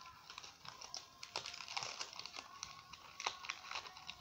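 Gold foil wrapper of a chocolate bonbon crinkling as fingers peel it off: soft, irregular crackles and rustles.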